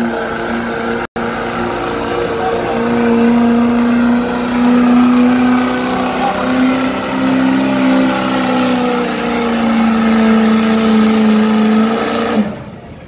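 Engine of a pulling vehicle held at full throttle as it drags the weight sled down the track, its pitch wavering slightly. It cuts back sharply near the end as the run stops.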